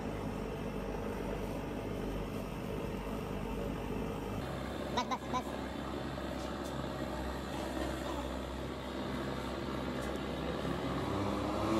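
Steady background noise with a low hum, and a few short clicks or knocks about five seconds in.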